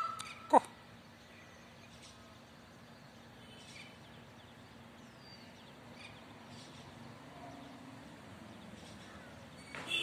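Peacock (Indian peafowl) calling: a brief, loud call that drops sharply in pitch about half a second in, and another call that starts right at the end. In between there is only faint background with a few small bird chirps.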